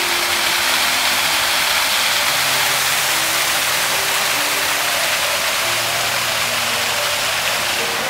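Small waterfall cascading over mossy rocks into a mountain stream: a loud, steady rush of falling and splashing water.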